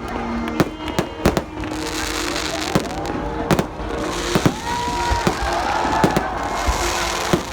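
Aerial fireworks bursting: irregular sharp bangs, about one or two a second, over a crackling hiss that swells in the middle.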